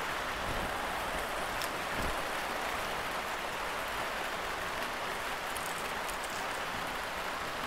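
Steady, even hissing noise with no rhythm, with a faint tick or two.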